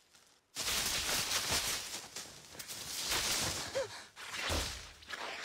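Film action-scene sound effects: after a brief hush, a sudden rush of whooshing noise starts about half a second in and carries on, with a low rumble joining near the end.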